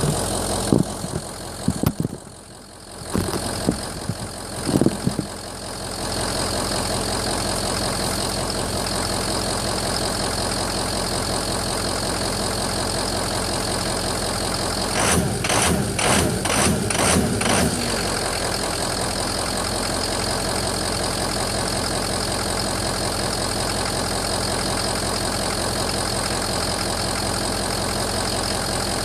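2004 Ford F-350's 6.0 L Power Stroke V8 turbodiesel idling rough, which the owner suspects comes from bad injectors, a bad FICM or a bad EGR valve. A few loud irregular knocks come in the first seconds, and a quick cluster of louder strokes comes a little past the middle.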